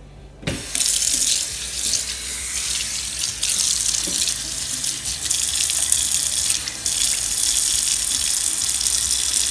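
Kitchen tap water running and splashing into a white cast iron sink basin as it is rinsed; the flow comes on abruptly about half a second in and then runs steadily.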